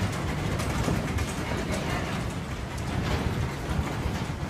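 Steady low rumble with irregular rattling and clatter throughout, as a building and its fittings shake in a strong earthquake.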